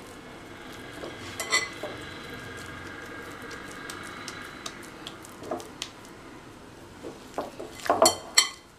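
Hands working soft, stretchy poli dough in a glass bowl, pulling off pieces and rolling them into balls: soft handling sounds with scattered light knocks against the bowl and plate, a small cluster about a second and a half in and a louder cluster near the end.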